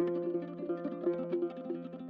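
Background music of quick plucked-string notes, mandolin- or guitar-like, over a held low note.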